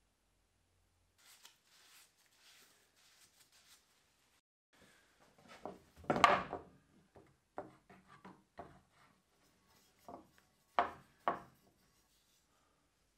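Handling sounds from a wooden-handled drawknife on a plywood workbench. Faint rubbing comes first, then a cluster of knocks about six seconds in, followed by several separate sharp taps.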